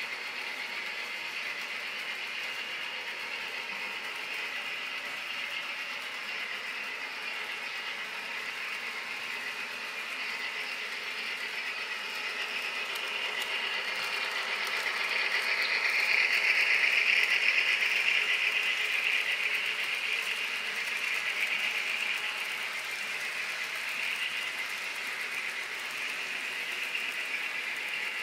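HO scale model ES44AC locomotive running on track, its motor and gears giving a steady whir with rattling wheels. It grows louder from about halfway, peaks a few seconds later as it passes closest, then eases off.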